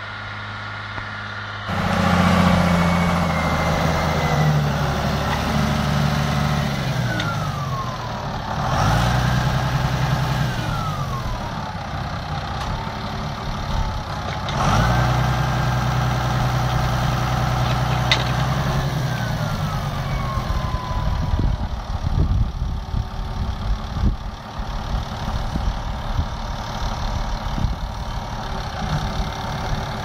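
Claas Ares 620 RZ tractor's John Deere six-cylinder diesel running, heard far off at first and close by after about two seconds. Its engine speed drops and climbs back twice, then settles at a lower, steady speed while repeated knocks and clunks sound over it.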